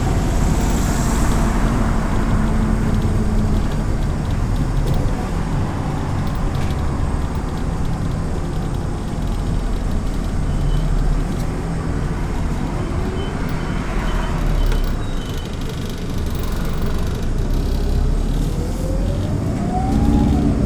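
Autosan Sancity M09LE city bus heard from on board while moving: engine and road noise throughout, with a whine rising in pitch near the end as the bus speeds up.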